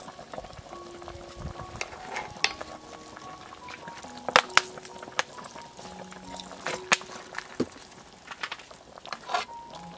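Pot of chicken simmering and steaming on the stove, with a bubbling hiss and scattered sharp clicks, the loudest a few about four seconds in as sauce is poured in from a bottle. Soft background music of slow held notes plays along.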